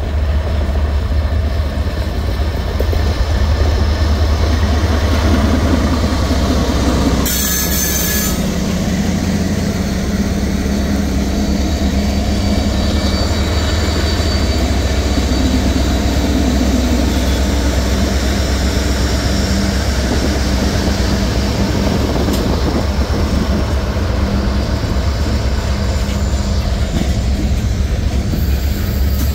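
A CSX freight train passes close by: the diesel-electric locomotives, among them an EMD SD70MAC, rumble past, followed by freight cars rolling over the rails with a faint wheel squeal. There is a short burst of hiss about seven seconds in.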